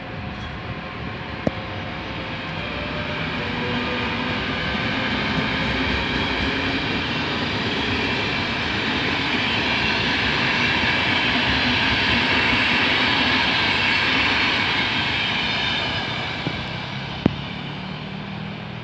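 Electric-hauled intercity passenger train passing by, a Siemens/Krauss-Maffei class 120 locomotive and its coaches. The steady rolling noise of the wheels on the rails swells to a peak as the coaches go past, then fades as the train draws away. There is a sharp click near the start and another near the end.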